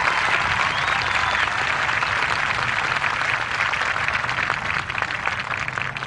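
Crowd applauding, holding steady and then dying down near the end.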